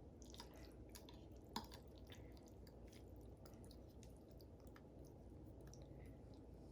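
Quiet eating sounds: faint chewing with scattered soft clicks, the clearest about a second and a half in.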